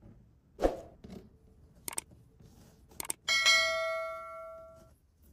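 A subscribe-button sound effect: two sharp clicks, then a bright notification bell chime about three seconds in that rings and fades out over about a second and a half. A single thump sounds near the start.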